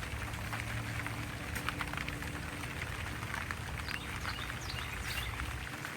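Light rain falling, drops ticking on leaves and pots, over a low wind rumble that drops off near the end. A few faint, short, high chirps in the second half.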